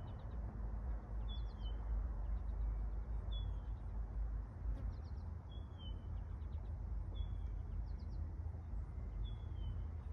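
A bird calling outdoors: a short falling call repeated about every two seconds, with little clusters of three or four quick high ticks between the calls, over a steady low rumble.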